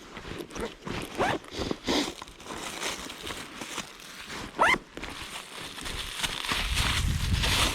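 Handling noises: scattered clicks and rustling with a few short rising scrapes, the clearest just past the middle, then a steadier rushing noise building near the end.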